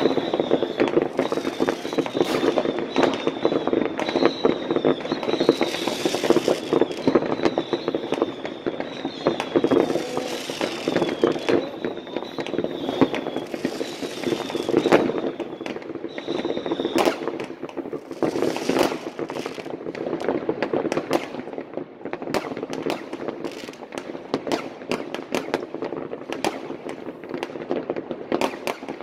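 Many fireworks and firecrackers going off at once: a continuous rattle of bangs and crackling, with a few sharper, louder bangs a little past the middle. A short high whistle repeats over and over through roughly the first half.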